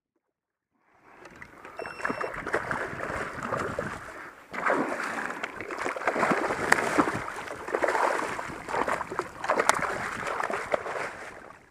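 Redfish splashing at the water's surface beside a kayak: irregular slaps and splashes of water, getting louder about halfway through.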